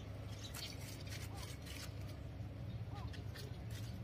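Soft rustling and light clicks of a hand rubbing a Shepherd puppy's fur as it lies among leafy plants, over a steady low hum.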